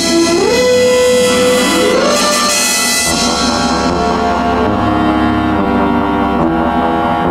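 Orchestral soundtrack music: a melody slides upward between held notes twice in the first two seconds, then moves on in held notes over a steady low hum.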